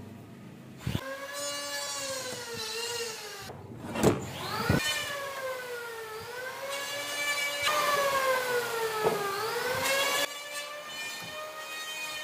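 Whine of an electric motor, its pitch sagging and rising several times, broken off briefly near four seconds, with a few sharp wooden knocks.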